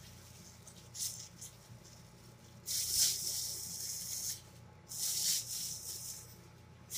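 Thin disposable plastic gloves crinkling and rustling as they are handled and pulled off, in two long rustles, with a few soft clicks from hands in the chicken bowl before them.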